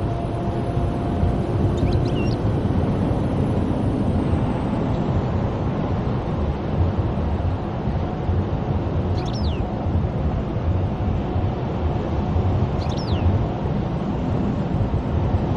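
Steady low road rumble of a car driving, tyre and engine noise heard inside the cabin. A few short, high, quickly falling chirps cut through it about two, nine and thirteen seconds in.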